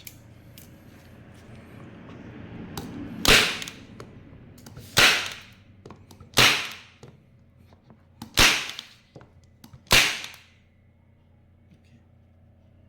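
Unitacker Light Force 6-in-1 staple gun firing five times, about one and a half seconds apart: sharp spring-driven snaps with a short ring, driving thin 0.7 mm staples into paper.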